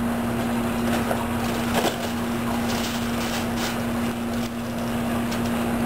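A steady mechanical hum with a constant noisy background, and a few light metal clicks from the smoker's wire grate being handled.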